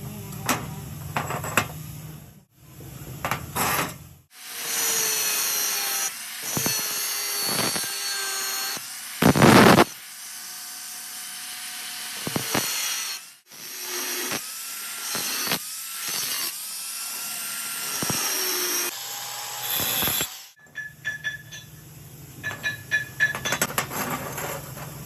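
A power tool cutting steel square tube, in several separate runs. Between runs its pitch slides up and down, and there are sharp clicks and taps at the start and near the end.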